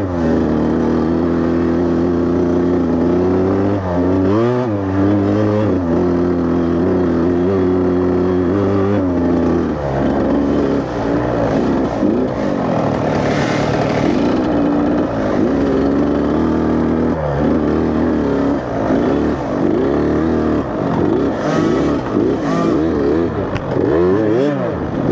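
Dirt bike engine heard from on board the bike, held at steady revs for about the first nine seconds, then revving up and down again and again as the throttle is worked.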